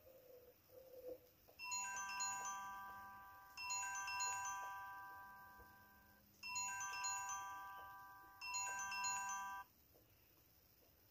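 Phone ringtone: a chime-like melody of quick high notes settling into a held chord that fades, played four times.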